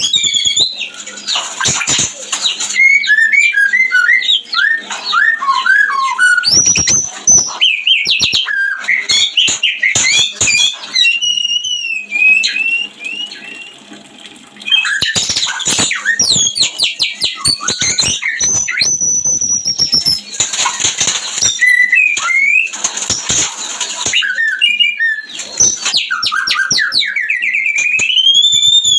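White-rumped shama (murai batu) in breeding condition singing loudly: a varied, continuous stream of rich gliding whistles, quick warbled phrases and harsh rasping notes. The song eases off briefly about halfway through.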